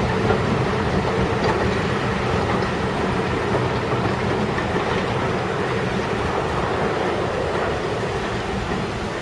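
Steam-hauled passenger train's coaches rolling past on the rails: a steady rumble of wheels on track that fades a little near the end as the train draws away.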